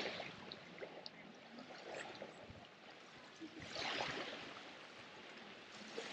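Small waves lapping softly on a sandy beach, with one louder wash of water about four seconds in.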